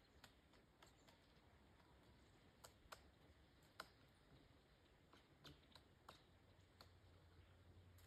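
Pileated woodpecker pecking and chiselling at a rotten fallen log: faint, irregularly spaced sharp knocks, about a dozen, the loudest two a little before the middle.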